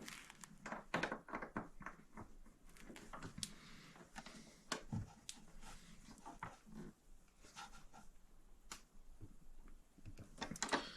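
Faint, irregular clicks, taps and light knocks of hardware being handled as a digital lock is worked into place in a metal tool cart.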